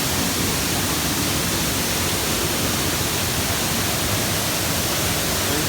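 Dry Falls on the Cullasaja River pouring in heavy flow, close by: a loud, steady, even rush of falling water.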